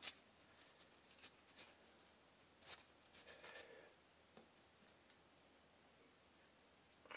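Faint rubbing and light scratching of a cloth rag wiping the polymer frame of a disassembled Gen 4 Glock 17, working gunpowder residue out of the magazine well. A short burst of rubbing comes about three seconds in, and the rest is near silence.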